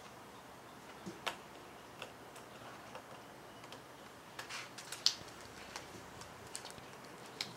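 Scattered light clicks and taps of fingers working a laptop keyboard's ribbon cable into its connector, the connector not yet seated; the sharpest click comes about five seconds in.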